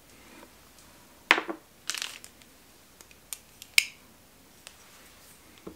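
Hands handling small folding knives: a few scattered sharp clicks and a short crinkly rustle, with the loudest clicks about a second in and again near four seconds.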